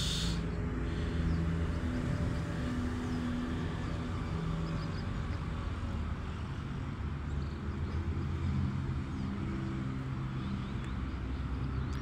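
Steady low engine hum with a droning pitch.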